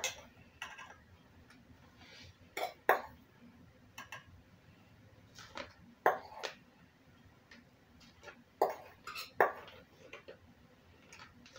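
Metal spoon clinking and scraping against a stainless steel bowl while scooping dry spice seasoning: sharp, irregular clinks every second or two, often two in quick succession.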